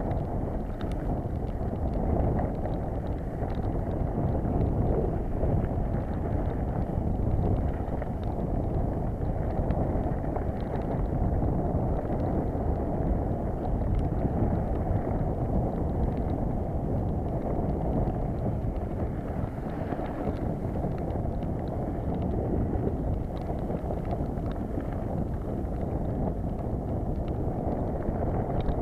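Mountain bike ridden fast down a rough dirt trail: a steady rush of wind on the microphone mixed with tyres rumbling over the ground, and small rattles and clicks from the bike over the bumps.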